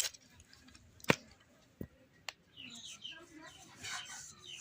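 A few sharp knocks, the loudest about a second in, then a run of short, quick chirps from small birds.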